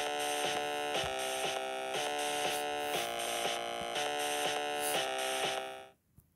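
Steady electronic buzzing drone with a soft beat about twice a second, the soundtrack of a cartoon train video played through a phone's small speaker; it fades out and stops about six seconds in.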